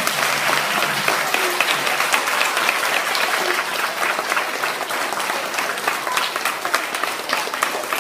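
A large audience of schoolchildren applauding: dense, steady clapping in a hall, with voices mixed in.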